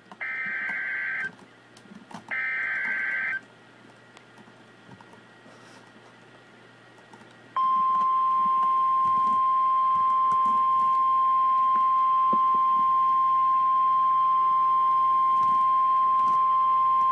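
Emergency Alert System severe thunderstorm warning: two buzzy bursts of SAME digital header data about a second long each, then after a pause a loud, steady single-pitched alert tone starts and holds for about ten seconds. The single tone is the NOAA Weather Radio 1050 Hz warning alarm.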